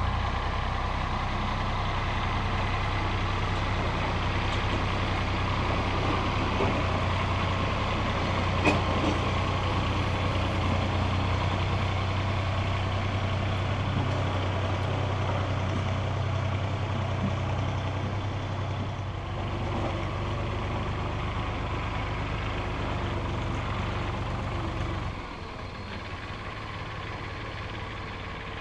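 Three-cylinder diesel engine of an IHC 423 tractor running steadily while it works with a grading blade, with one sharp clank about nine seconds in. About 25 seconds in it becomes quieter as the tractor moves farther away.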